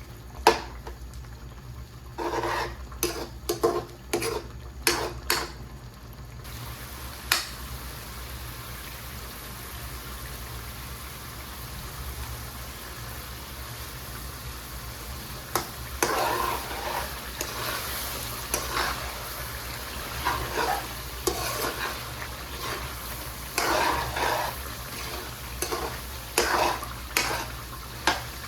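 Chicken karahi sizzling as it fries in a pan, with a spoon stirring and scraping it in repeated strokes: a cluster a few seconds in, then again from about sixteen seconds on. The sizzle becomes steady about six seconds in.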